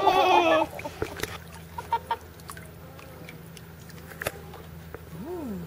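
A five-week-old Weimaraner puppy whining, a wavering, warbling cry that is loudest in the first second and then stops. A few small clicks follow, and a lower wavering call comes near the end.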